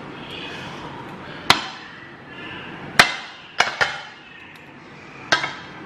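A glass dish knocking against a ceramic plate as a set jelly pudding is unmoulded: about five sharp clinks, two of them close together about halfway through.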